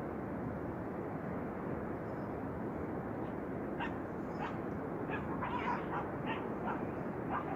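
Steady rain and storm noise. From about four seconds in, a string of short, high-pitched animal calls sounds over it.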